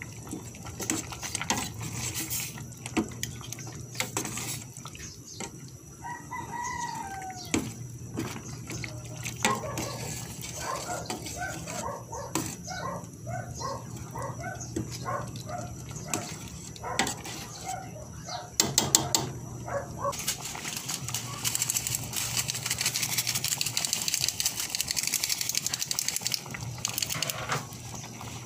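A metal ladle stirring thick mung bean soup in a stainless-steel pot, with scattered clinks and scrapes against the pot, while chickens crow and cluck in the background. Later the soup bubbles at a boil with an even hiss.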